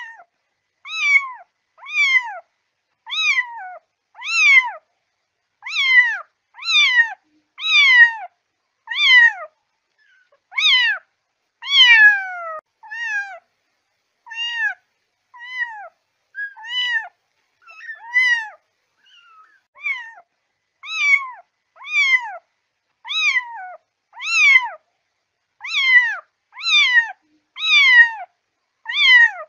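A kitten meowing over and over, about one high, falling-pitched meow a second, with a brief pause about two-thirds of the way through.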